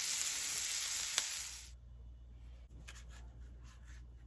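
Whole trout and onions sizzling as they fry in a pan, with a sharp click of the spatula about a second in. The sizzle cuts off suddenly under two seconds in, leaving a low hum and faint clicks.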